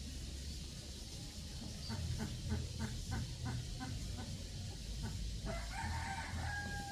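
Poultry calling: a quick run of about eight short calls, then one long drawn-out call near the end.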